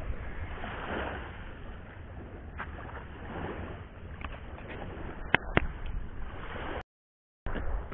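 Surf and wind noise at the shoreline, swelling and ebbing, with a few sharp clicks a little past the middle. The sound cuts out completely for about half a second near the end.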